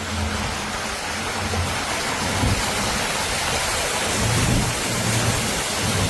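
Steady rush of heavy rain and water noise, with a low engine drone underneath that fades and comes back.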